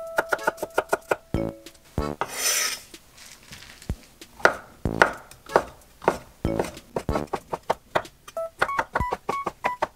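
Chef's knife striking an end-grain wooden cutting board: quick chopping strokes through garlic cloves, then after a brief rustle, slower strokes about two a second slicing shiitake mushrooms.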